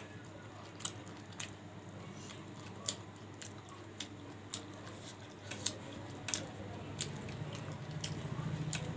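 Close-up eating sounds: a person chewing and squishing rice and curry by hand, with scattered sharp wet clicks. A low steady hum underneath grows louder near the end.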